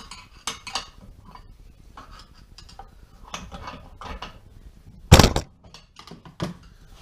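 Scattered metal clinks and knocks of metal pieces being handled and set down, with one loud clank about five seconds in.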